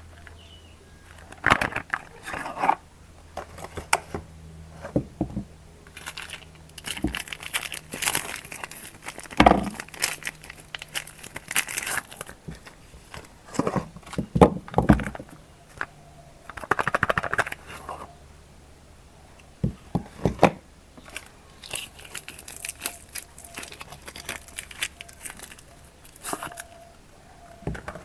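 Soap-bar packaging being crumpled and torn open by hand, in irregular bursts of crinkling and crackling with short pauses between.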